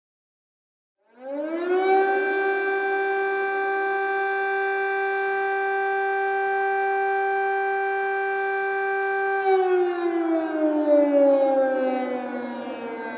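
Civil defense siren starting about a second in: it winds up quickly to one steady tone, holds it for about eight seconds, then winds down with its pitch falling slowly.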